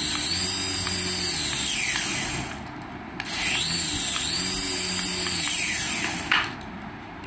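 Toy RC helicopter's small electric motors whirring as its coaxial rotors spin while it is held in the hand. The whine rises in pitch, holds, and falls away and stops about two and a half seconds in, then spins up again and winds down near the end.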